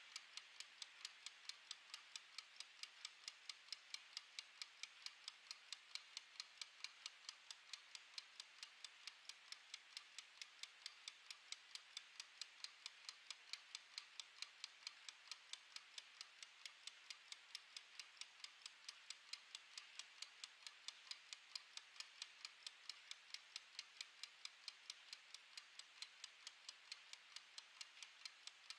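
Mechanical wind-up kitchen timer's clockwork ticking faintly while it counts down, as a quick, even run of sharp ticks at several a second.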